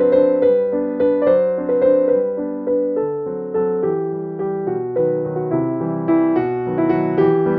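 Background piano music: a gentle melody of single struck notes over a soft accompaniment.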